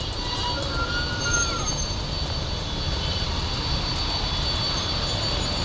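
Boeing 747 freighter's four jet engines running steadily as it taxis: a constant deep rumble with a thin high whine over it.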